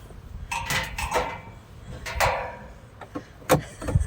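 Hands handling a stiff, cold plastic fuel hose and its fitting: several short rustling scrapes, then two sharp knocks near the end.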